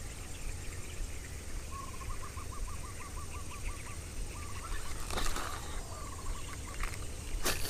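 A bird calling in a rapid series of short repeated notes, about six a second, in two runs, over a steady thin high tone and a low rumble. A sharp click about five seconds in and another near the end.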